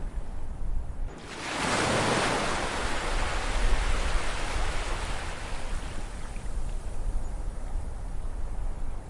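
Ocean wave breaking about a second in: a rush of surf that swells quickly and then slowly fades away, over a low steady rumble.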